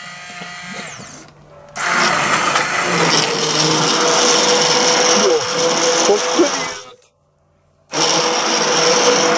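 Electric hand (immersion) blender puréeing pumpkin soup in a stainless steel bowl: a loud, steady motor whine with churning liquid. It runs for about five seconds, cuts out for about a second, then starts again.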